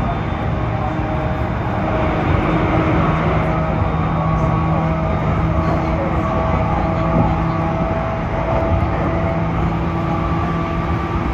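Running noise inside a moving electric train: a steady rumble of wheels on the track with a few steady humming tones.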